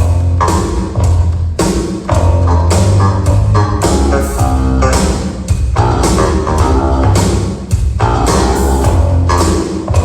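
Band playing loud pop-rock music in a sound check: drum kit on a steady beat with electric guitar and a heavy bass line.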